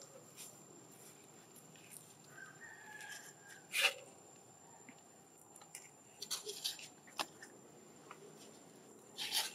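Long-tailed macaque eating a piece of raw vegetable: scattered crisp clicks, crunches and rustles of biting and handling, the sharpest about four seconds in and a cluster near the end. A steady faint high tone runs underneath.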